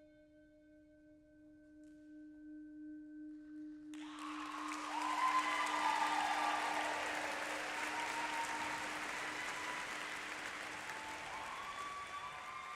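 A single held musical note with a slow pulse rings on and fades; about four seconds in, an audience breaks into loud applause and cheering, which carries on.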